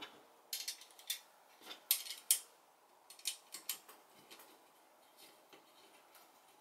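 Small metal clicks and clinks as screws, spacers and a screwdriver are handled against a quad rail on a Remington 870 receiver during fitting. A quick cluster of sharp clicks comes in the first two and a half seconds, then fainter scattered ticks.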